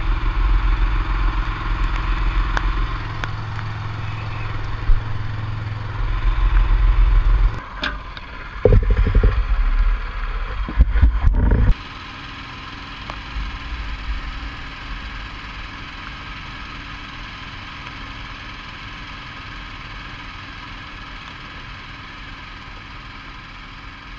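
An engine running steadily with a heavy low rumble. From about eight to twelve seconds in there are loud knocks and surges, and then it cuts suddenly to a quieter, steady hum.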